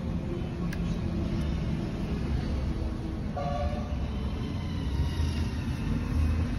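Steady low background rumble like road traffic, with a short horn toot about three and a half seconds in. Two faint clicks near the start as the plastic toy tractor parts are handled.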